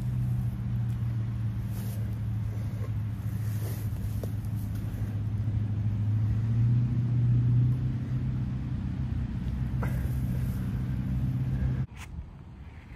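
Steady low motor hum with a clear, even pitch, growing a little louder about two-thirds of the way through and cutting off abruptly near the end.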